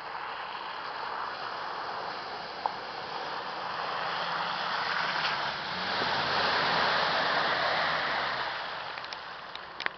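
Nissan Patrol 4x4 driving through a flooded mud track, its engine running and its tyres splashing through the puddles, growing louder as it approaches and passes, loudest about seven seconds in, then fading. A few sharp clicks near the end.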